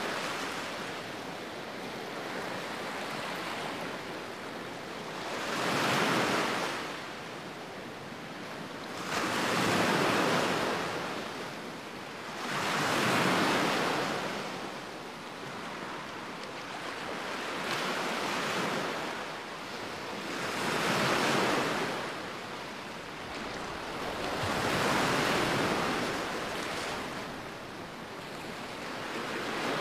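Sea waves breaking and washing up the shore, the surf swelling and falling back every three to four seconds.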